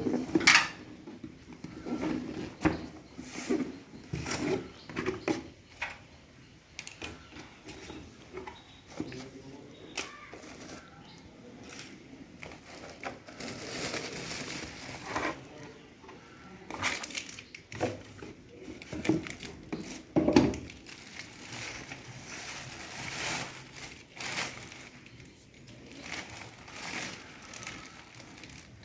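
Crinkling and rustling with scattered irregular clicks and knocks, the sound of things being handled.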